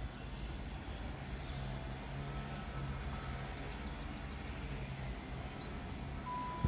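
Railway station platform ambience: a steady low hum and rumble with faint high chirps. Near the end a clear high tone begins, the first note of a station public-address chime.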